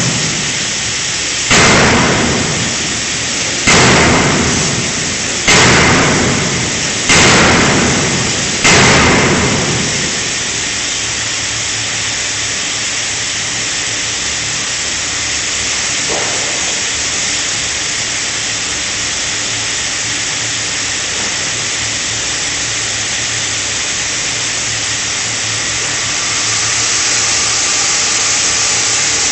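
A 5-ton fully hydraulic closed-die forging hammer strikes five heavy blows about two seconds apart while forging a connecting rod, each blow ringing and dying away. A steady machinery hiss and hum follows, getting a little louder near the end.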